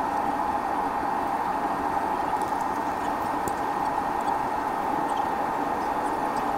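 Jet airliner's engines running at taxi power, a steady hum with a band of whine, heard from inside the passenger cabin as the plane rolls slowly along the taxiway.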